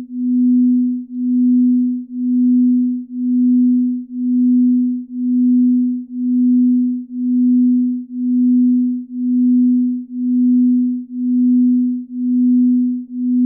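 Binaural-beat sleep tone: a single low pure tone that swells and fades smoothly about once a second.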